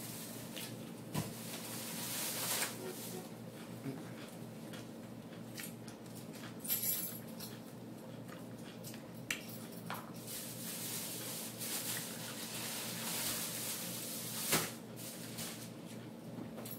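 Close-up eating sounds: chewing crunchy salad, and a fork clicking and scraping in a plastic container, in short scattered clicks and crackly stretches over a steady low hum.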